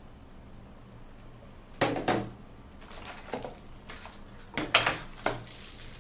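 Camera accessories and their packaging being handled and set down on a surface: a few short clacks and rustles, starting about two seconds in and clustering again near the end.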